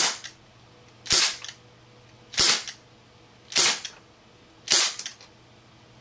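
HFC HG132 gas-powered airsoft revolver firing five shots at a steady pace, about one every 1.2 seconds, each a sharp pop followed by a faint tick.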